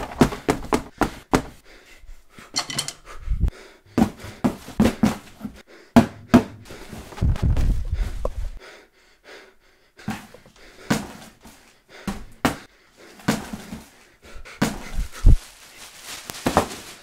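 A cardboard shipping box being handled and opened by hand: a string of irregular knocks and taps on the cardboard, with a longer scraping rustle about seven seconds in.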